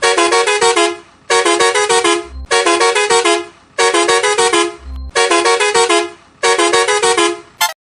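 A truck horn playing the WhatsApp notification tune over and over in different variations: about six one-second phrases of quick stepped notes with short gaps between them. A brief blip comes near the end, then the sound cuts off.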